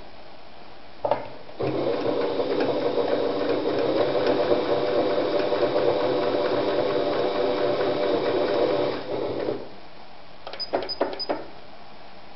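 Singer Rumina 3000 electronic sewing machine stitching through fabric at a steady speed for about eight seconds, after a brief stitch about a second in, then slowing and stopping. Near the end, a few clicks and three short high beeps as its stitch-selector buttons are pressed.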